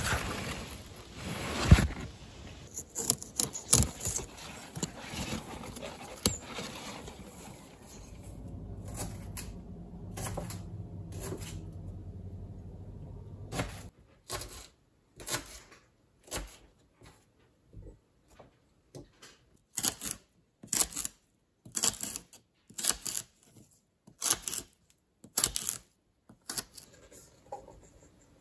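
Rustling of rhubarb leaves and stalks being handled among the plants. About halfway through this gives way to a kitchen knife chopping rhubarb stalks on a wooden cutting board: sharp, irregular chops roughly once or twice a second.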